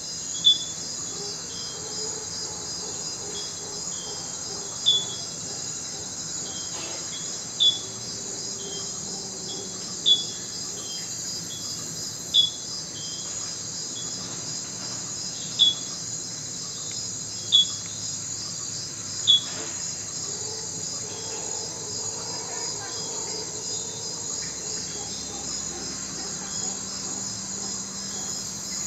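Dense insect chorus of crickets or cicadas, a steady high pulsing trill throughout. A loud short chirp cuts through it about every two to three seconds, eight times, then stops about two-thirds of the way in.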